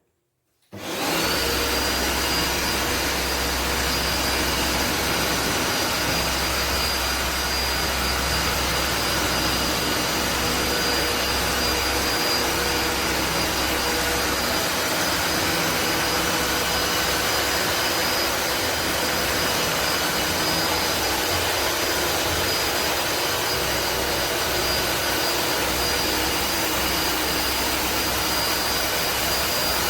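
Tineco iFloor 5 Steam wet-dry floor cleaner switching on about a second in and running steadily: a loud rush of air with a high whine that rises briefly as the motor comes up to speed, then holds.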